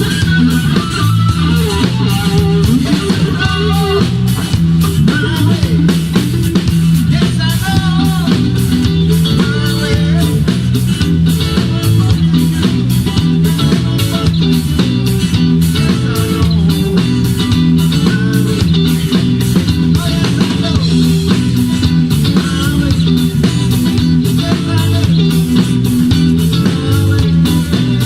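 Rock band playing: electric guitar and bass guitar over a steady drum beat, with a bending melody line above.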